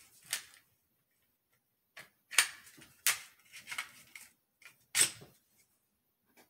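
Glock 44 .22 pistol being handled unloaded: a string of sharp mechanical clicks and clacks from its slide and trigger, about eight in all, the loudest two about two and a half and five seconds in.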